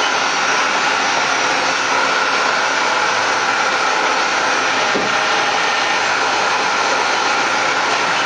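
Mori-Seiki MV-65B/50 vertical CNC machining center running, a steady whirring hiss with a high steady tone through it.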